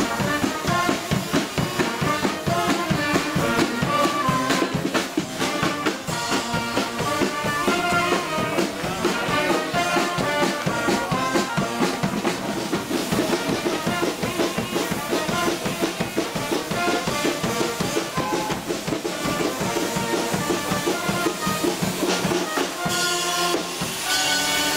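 A town brass band playing on the station platform: brass instruments carrying the tune over a steady beat from bass drum and drums.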